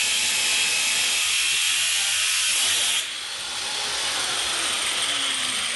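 Electric angle grinder running: a steady high whine over a strong hiss. It drops in level about three seconds in, then builds back up.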